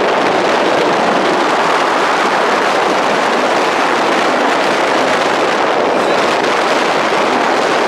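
Steady rushing noise of a rail vehicle running, even in level with no breaks.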